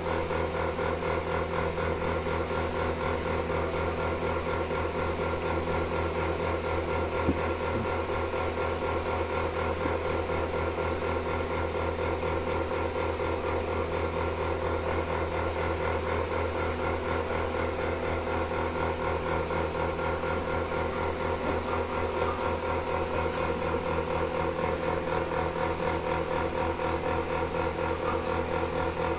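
Milking machine running steadily: a constant low hum with a fast, even pulsing over it.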